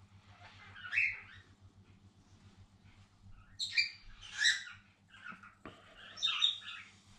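Pet cockatiels chirping in three short bouts: about a second in, around four seconds, and just after six seconds. A faint steady low hum runs underneath.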